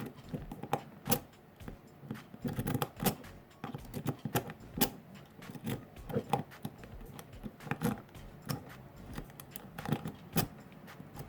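Lock pick rake being worked in the keyway of a Eurospec long-shackle padlock against a tension wrench: irregular metallic clicks and light scraping as the pins are raked.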